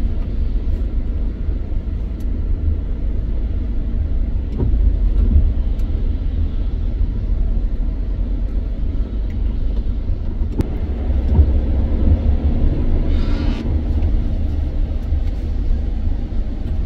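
Steady low rumble of a vehicle's engine and tyres on a wet road, heard from inside the cab, with a short hiss about two-thirds of the way through.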